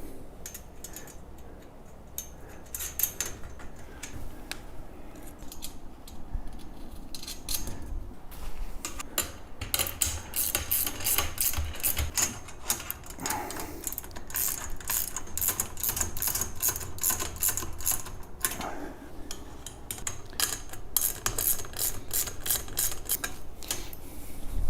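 Quick runs of sharp metallic clicking and rattling from hand tools and hardware being worked while parts of a compost tumbler are fastened, sparse at first and busier from about a third of the way in.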